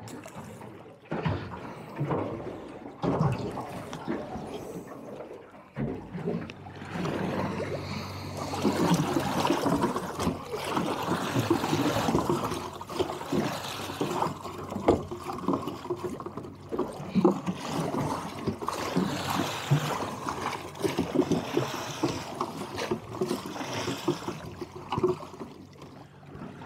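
Sea water sloshing and splashing against the hull of a small fishing boat, busier and louder from about seven seconds in.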